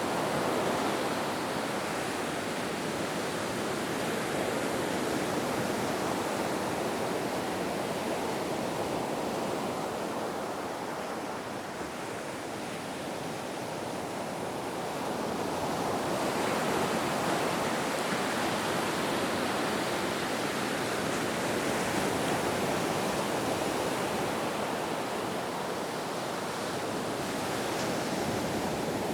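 Ocean surf washing onto a beach: a continuous rushing wash that eases off around the middle and swells up again about two-thirds of the way through.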